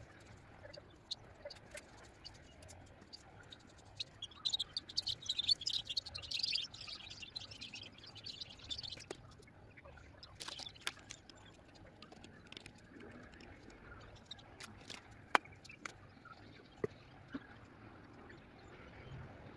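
Broom sweeping over brick paving: a run of short, scratchy strokes for several seconds, followed by scattered sharp clicks and taps.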